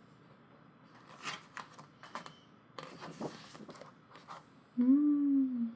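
Paper pages of a thick photobook turning and rustling in a few short strokes, then near the end a short hummed vocal sound, about a second long and falling slightly in pitch.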